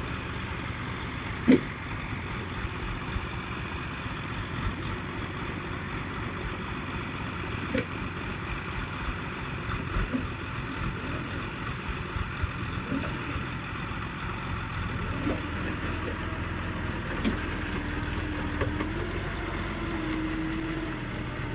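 A heavy vehicle's engine running steadily, with several sharp knocks, the loudest about a second and a half in. A steady whine joins it for the last several seconds.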